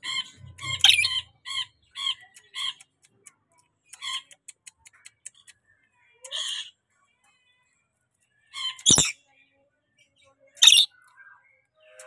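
Lorikeet calling: a quick run of short chirps, a few more scattered calls, then two loud harsh screeches under two seconds apart near the end.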